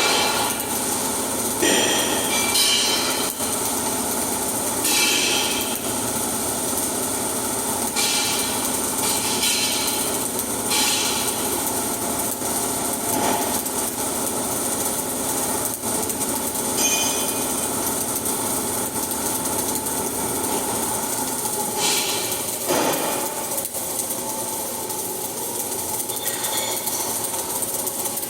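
Flux-cored arc welding: the arc crackles and hisses steadily, with several brief louder bursts scattered through.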